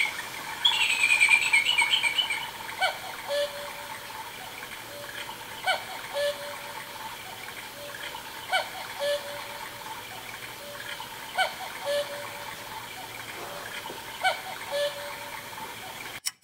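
Electronic cuckoo call of a quartz mini cuckoo clock sounding five times, about three seconds apart, each a two-note falling 'cu-ckoo'. Under it runs a steady recorded trickling-water background, with busier chirping in the first two seconds.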